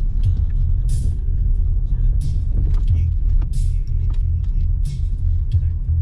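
A car driving along a road: a steady low road-and-engine rumble, with short hissy bursts recurring about every second and a half.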